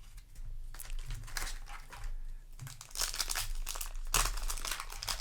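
Foil booster pack wrapper crinkling and crackling as it is handled, busiest in the second half.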